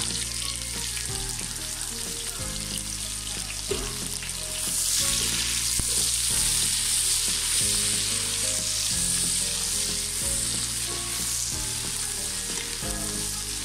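Chopped onions frying in hot mustard oil with whole spices, sizzling steadily as a wooden spatula stirs them; the sizzle gets louder about four and a half seconds in. Background music with held low notes plays underneath.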